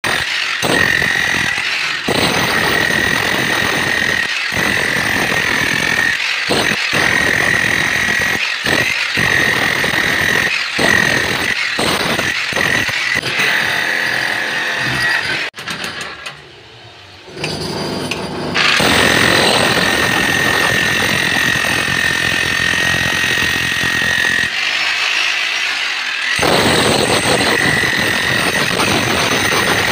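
Electric rotary hammer chiselling into concrete, hammering in runs broken by many short pauses, with a high steady motor whine over the hammering. It drops out for a couple of seconds about halfway through.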